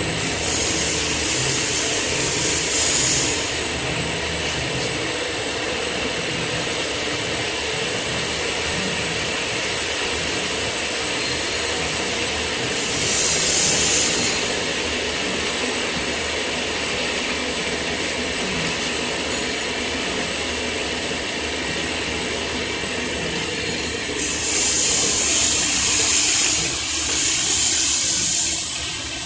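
Wood door and cabinet door sanding machine running: a steady mechanical whirr of its motors and spinning abrasive brush rollers, with a thin high whine throughout. Louder swells of hiss come about a second in, again around the middle, and for several seconds near the end.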